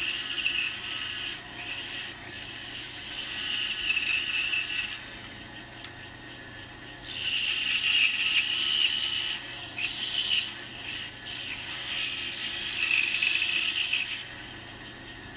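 Pegas bandsaw cutting through a small wooden block, a high hissing rasp while the blade is in the wood over a steady motor hum. The cuts come in two long stretches with short breaks, separated by a quieter spell of about two seconds, and stop a second before the end.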